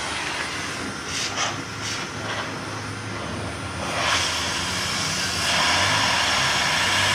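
Pet grooming blower running steadily through its hose, with a low motor hum, growing louder a little past the middle.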